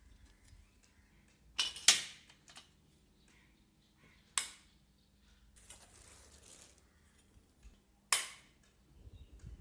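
Sharp clicks and snaps from the plastic and metal fittings of a folding tripod easel stand being handled during assembly: a quick cluster about two seconds in, then single sharp clicks at about four and a half and eight seconds, with a short rustling scrape between them.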